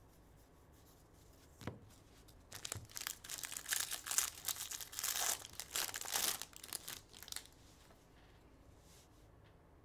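A Bowman baseball card pack's wrapper being torn open and crinkled by hand: a single light knock, then about five seconds of tearing and rustling from a few seconds in.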